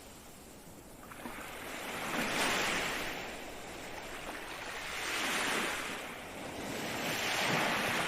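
Ocean waves breaking and washing in, three surges that swell and fade, with some wind.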